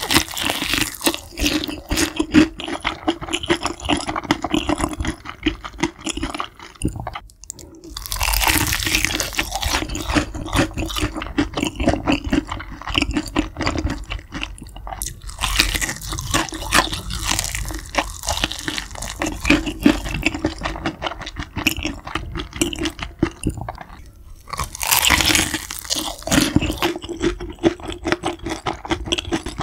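Close-miked eating of crispy fried chicken: four loud crunching bites, each followed by a long stretch of crackly chewing.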